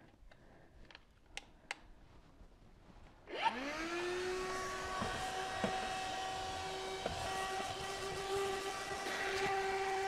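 A HOTOR 12-volt handheld car vacuum switched on about three seconds in: its motor whine climbs quickly to a steady pitch, then runs steadily with a rushing hiss as it vacuums a carpet mat. A few faint clicks of handling come before it starts.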